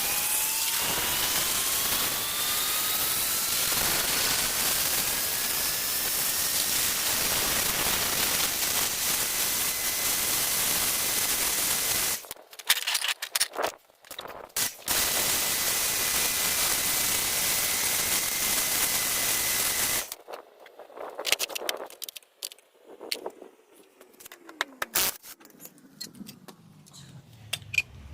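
A power grinder sharpening a steel lawnmower blade: loud grinding noise over a motor whine that rises in pitch and then holds steady, broken off briefly near the middle. It stops after about twenty seconds, followed by scattered clicks and knocks as the blade is handled.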